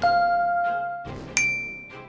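Workout-timer chime marking the end of a countdown: a ringing ding that fades over about a second, then a higher, brighter chime about a second and a half in.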